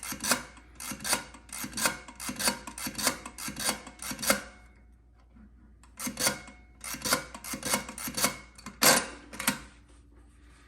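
Keys of The Adder, an early-1900s mechanical column adding machine, pressed one after another: crunchy, rattling clicks of the key levers working the toothed mechanism, about three a second. They come in two runs separated by a pause of about a second and a half.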